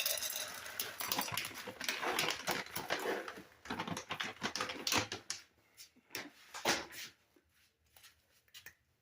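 A cat scratching and rustling: a dense run of scratchy clicks that thins to scattered taps after about five seconds.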